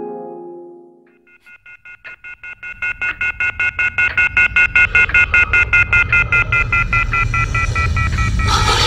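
Telephone sound: a steady high tone pulsing about four to five times a second over a low hum, swelling in loudness. Near the end it gives way to a rushing noise.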